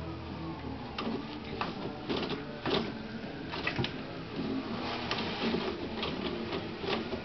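Toilet paper rustling and tearing as a cat paws and bites at the roll on its holder, with irregular sharp crinkles and taps.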